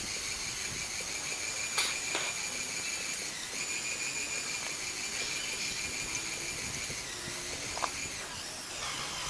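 Small electric motors of a LEGO machine running with a steady high-pitched whine that pauses briefly and stops near the end, with a few sharp clicks.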